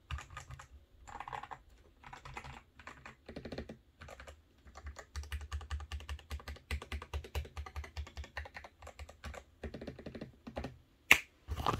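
Typing on a GMMK Pro mechanical keyboard fitted with lubed Boba U4T tactile switches, with tape and foam mods. Fast runs of keystrokes are broken by short pauses, and one sharp, louder click comes near the end.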